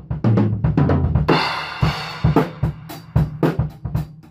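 Drum kit playing a busy run of kick, snare and cymbal hits, with a cymbal crash just over a second in.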